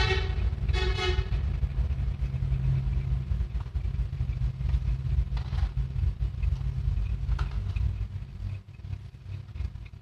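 Road traffic rumbling steadily, with a vehicle horn tooting at the start and again about a second in. The rumble eases near the end.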